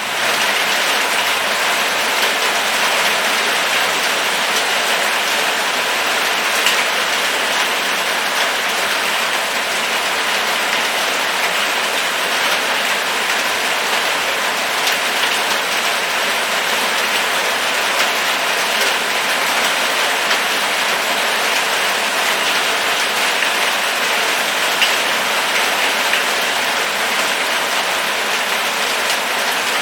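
Steady rain falling: a dense, even hiss of rain with scattered sharper drop ticks, holding a constant level throughout.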